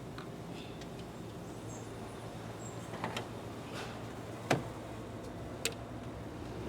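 Hand tools clicking and clinking against metal as 8 mm bolts are undone from the engine's EGR valve: about four sharp, separate clicks, the loudest about four and a half seconds in, over a faint steady low hum.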